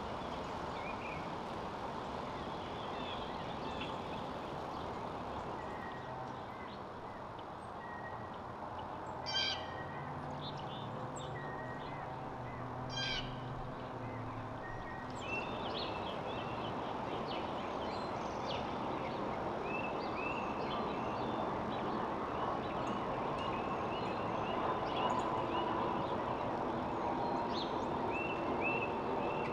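Wild backyard birds calling: many short chirps, with two sharper call notes about a third of the way in, then a run of quick repeated chirps through the second half, over a steady outdoor background hum.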